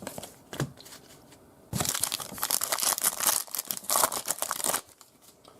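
Trading card pack wrapper crinkling and tearing for about three seconds, starting a little under two seconds in.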